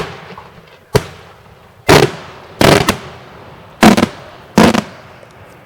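Daytime fireworks: six loud bangs in quick succession, roughly one a second, each followed by a rolling echo.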